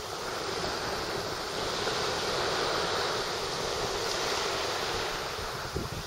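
Small waves washing steadily up onto a sandy beach, with some wind buffeting the microphone.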